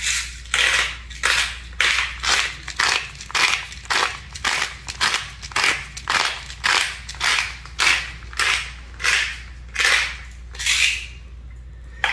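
Hand-twisted pepper grinder cracking black peppercorns, a gritty crunch with each twist, about two a second, stopping about a second before the end.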